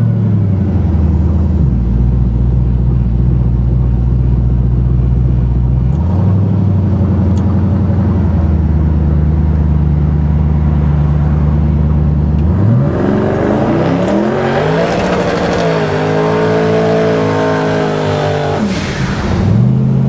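Twin-turbo 388-cubic-inch LSX V8 of a 1965 Chevelle, heard from inside the cabin: it pulls along at low revs with a steady drone. About 12 seconds in it is opened up and the revs climb hard for several seconds, then fall sharply near the end and start to pick up again.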